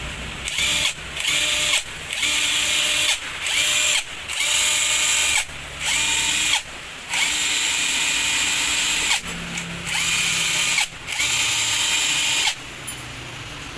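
Hitachi cordless impact wrench run in about nine short trigger bursts. Each burst spins up with a rising whine, then runs at speed before stopping.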